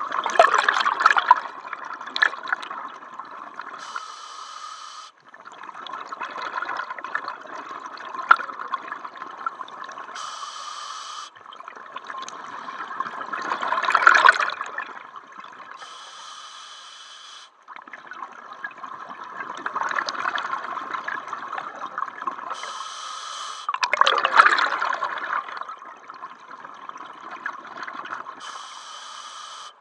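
Scuba diver breathing through a regulator underwater: about five breaths, each a short hissing inhale of about a second followed by several seconds of exhaled bubbles gurgling out, in a steady rhythm of roughly one breath every six seconds.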